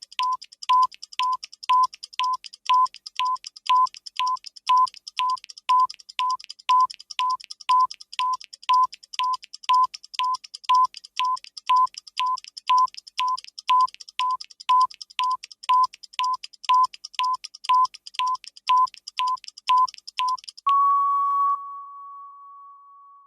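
Countdown timer sound effect: a clock ticking evenly, about two ticks a second, each tick carrying a short beep-like tone. Near the end the ticking stops and one long steady beep sounds, the alarm at zero, fading away.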